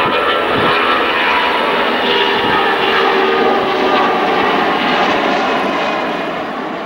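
Four-engined Airbus A340 airliner climbing out after takeoff, its jet engines at takeoff thrust: a loud, steady rushing noise with whining tones in it, fading a little near the end.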